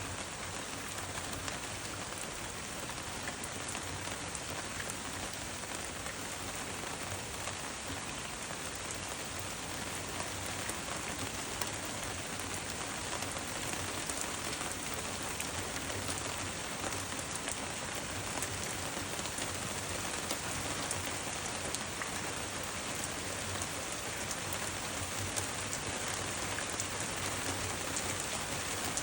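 Steady rain falling on a surface, a dense even hiss made of countless small drop ticks.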